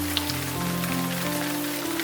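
Slow, soft piano notes over a steady rain sound, with a new note or chord coming in about every half second.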